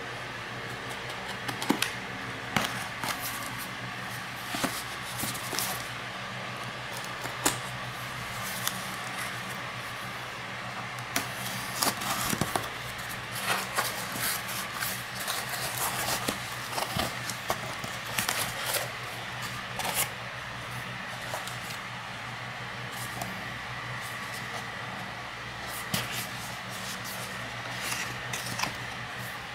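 A cardboard parcel being opened by hand: a knife slitting the packing tape, then cardboard flaps and an inner box handled, with scattered scrapes, taps and rustles. A steady background hum runs underneath.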